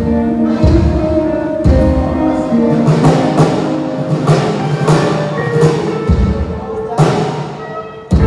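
A live band playing through a PA system during a sound check: deep bass notes and sustained pitched notes, with drum hits about once a second.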